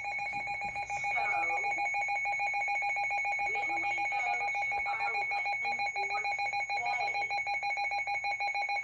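Weather alert radio's electronic alarm: two steady pitches, one low and one high, pulsing rapidly and continuously. It signals an incoming Flash Flood Warning. A faint voice is heard underneath.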